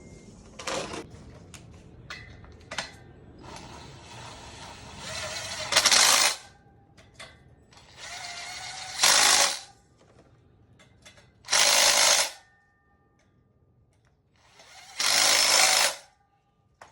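Power tool run in four bursts of about a second each, with small clicks and knocks between, as the sprocket bolts are run out of the old rim and into the new one.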